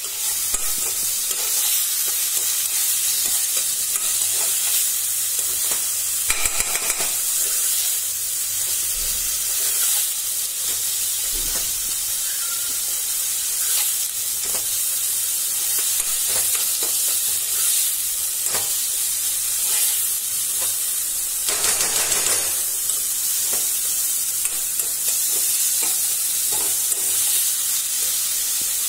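A grated mixture frying in oil in a wok, sizzling steadily while a spatula stirs and scrapes it around the pan, with two louder, longer scrapes.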